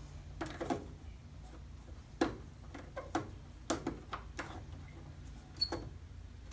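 Scattered, irregular small plastic clicks and knocks as a reverse-light bulb socket is twisted and worked into the back of an aftermarket LED taillight housing, over a steady low hum.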